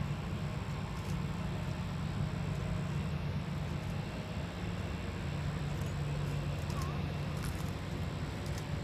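A steady low engine drone, with a faint high whine held throughout.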